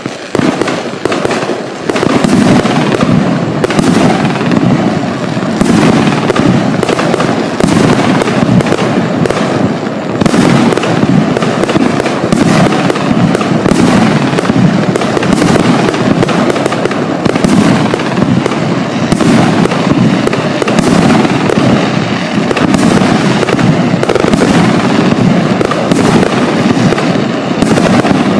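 Hestia Crown fireworks battery, 29 shots in 38 and 47 mm calibre, firing: a fast, unbroken string of launch thumps and aerial bursts.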